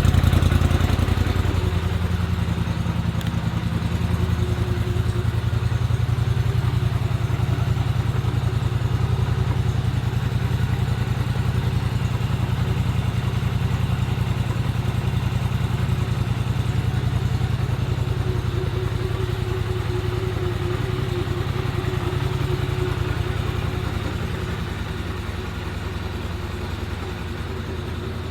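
Polaris Sportsman XP 1000 ATV's twin-cylinder engine running at a steady idle, settling down over the first couple of seconds and getting slightly quieter near the end.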